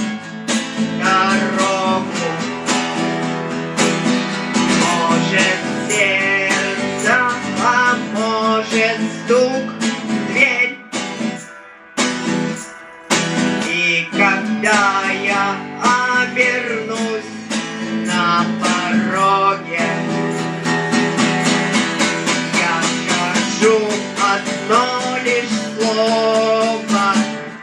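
Acoustic guitar strummed with a voice singing over it, pausing briefly twice near the middle.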